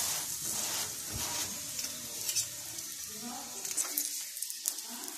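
Oiled aloo paratha sizzling on a hot tawa, with a few small crackles and soft rubbing as it is pressed and turned round with a folded tissue and then a wooden spoon.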